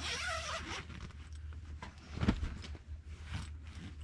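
Sleeping bag being unzipped and handled: a short zipper rasp with rustling fabric at the start, then a single dull thump a little past halfway.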